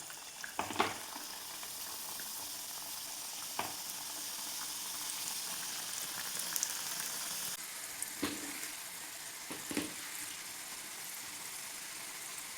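Chicken rolls deep-frying in hot oil in a kadai: a steady sizzle, with a few short knocks along the way.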